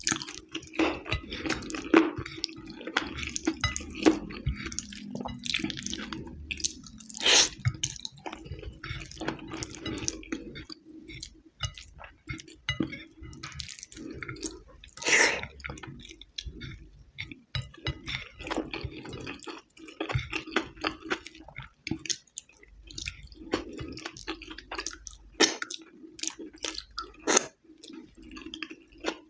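Wet mouth sounds of a person eating rice and chili sauce by hand: chewing and lip smacks, with sticky squishes as fingers gather sauced rice from the plate. Many short sharp clicks are scattered throughout.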